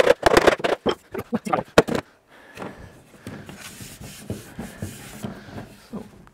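A mallet tapping the glued joints of an oak door frame home: a quick run of sharp knocks over the first two seconds. Then quieter scraping and rubbing as the wooden frame is handled and lifted off the bench.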